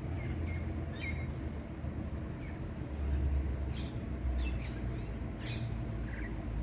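Birds chirping in short, scattered calls over a steady low rumble that swells briefly near the middle.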